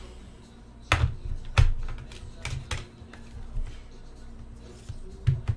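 A series of irregular sharp taps and clicks, the loudest about a second and a second and a half in, over quiet background music.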